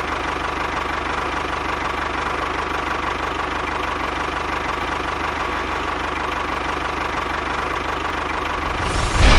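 A small motor running steadily with a fast, even buzzing rattle, then a sudden louder burst of noise just before the end.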